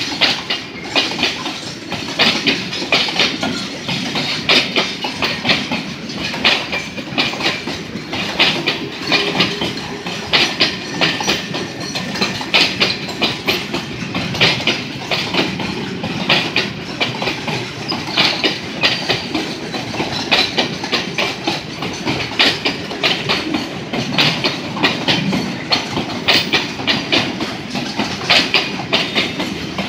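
Freight train of boxcars and grain hopper cars rolling past close by, steel wheels clacking over the rail joints in a steady repeating rhythm, with a continuous rumble underneath.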